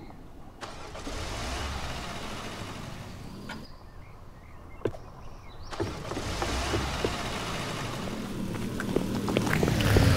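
A car's engine and road noise, growing steadily louder toward the end, with a few sharp clicks near the end.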